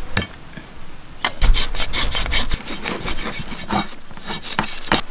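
Knife scraping scales off a rockfish, a quick, irregular run of rasping strokes.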